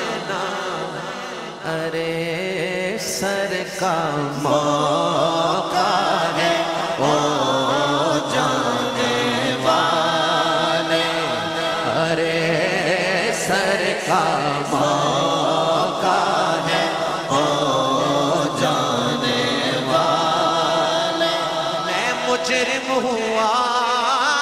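Urdu naat sung by a male reciter in long, wavering held notes, a melodic devotional chant.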